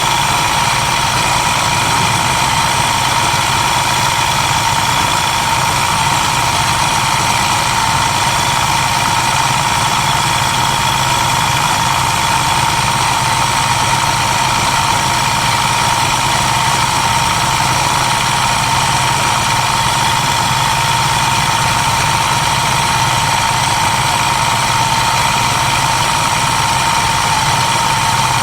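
Motorcycle engine running at a steady, unchanging pitch, with no revving up or down.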